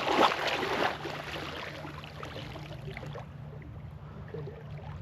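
Water rushing and splashing around a small boat, loudest in the first second and dying away over the next couple of seconds, over a steady low hum.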